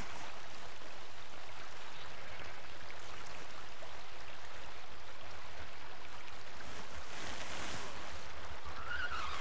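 Steady rush of flowing river water, with a faint low hum beneath it.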